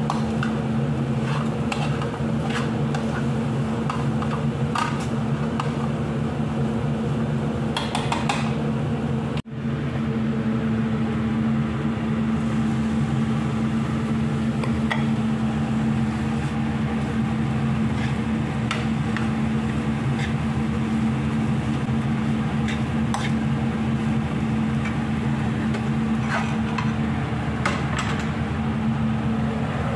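A cooking utensil scraping and tapping against a nonstick frying pan as a vegetable filling is stirred, giving scattered clicks and scrapes. Underneath, a steady low mechanical hum.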